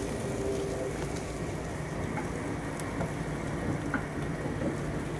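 Ribeye steak sizzling over glowing mesquite charcoal with whisky wood chips: a steady hiss with a few faint pops.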